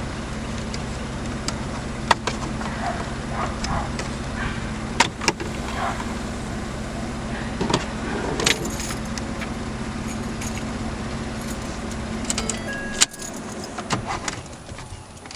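Plastic steering column shroud being pried and worked apart, giving scattered sharp clicks and snaps over a steady low hum. The hum cuts off suddenly about 13 seconds in, and short electronic beeps follow near the end.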